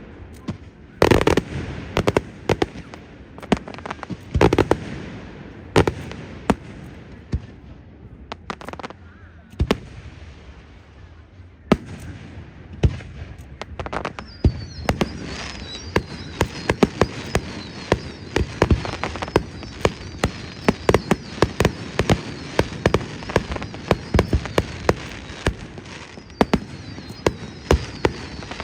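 Aerial fireworks display: a few loud booming shell bursts early on, then from about halfway a dense, rapid run of sharp crackling reports with a faint wavering whistle above them.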